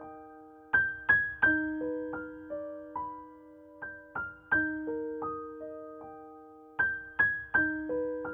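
Background music: solo piano playing a slow, gentle broken-chord figure, single notes struck and left to ring out, the figure repeating about every three seconds.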